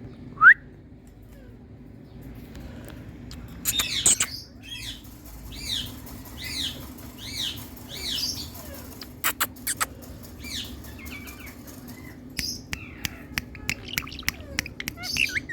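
Pet Indian parrot calling: one sharp rising whistle about half a second in, then from about four seconds a series of repeated squawking calls roughly one a second, and fast clicking chatter near the end.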